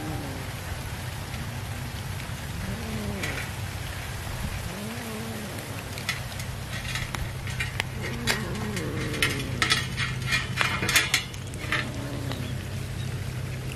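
Several cats licking and lapping at a steel tray, their tongues making quick wet clicks against the metal, coming thickest in the second half.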